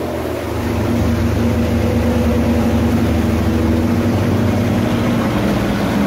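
A pontoon boat's outboard motor running steadily under way, picking up slightly in the first second, over a steady rush of water and wind.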